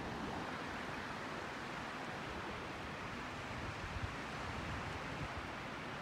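Small Pacific Ocean waves washing up a flat sandy beach: a steady hiss of low surf.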